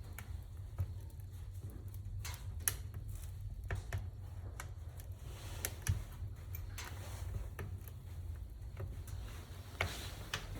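Wood fire crackling in the firebox of a Prity 14.2 kW fireplace stove with oven: irregular sharp snaps and ticks over a low steady rumble.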